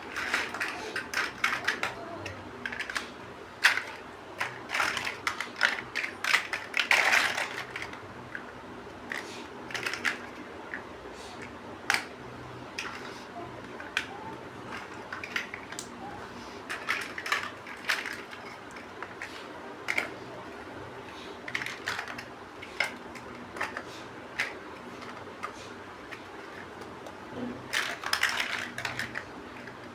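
Plastic building bricks clicking and clattering as they are handled and snapped together: irregular sharp clicks, busiest in quick clusters during the first several seconds and again near the end.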